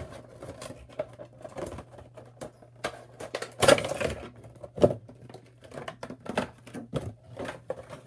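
A cardboard Funko Pop box being opened by hand: repeated clicks and taps of the cardboard flaps and packaging, with a louder crinkling rustle of the clear plastic insert about three and a half seconds in, then a sharp click.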